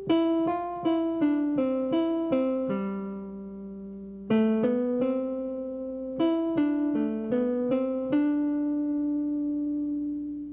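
Music: a melody on a piano-like keyboard, in two phrases of short struck notes, each phrase ending on a held note; the last note rings on and fades out.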